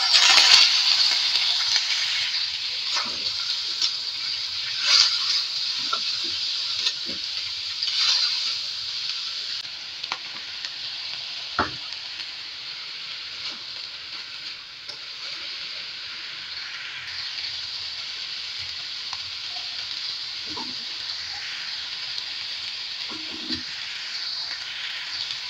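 Shredded cabbage and carrot sizzling in a hot oiled wok. The sizzle is loudest just after the vegetables go in and settles to a steady, quieter hiss after about ten seconds. Scattered taps and scrapes of a plastic spatula against the wok come through, with one sharper knock near the middle.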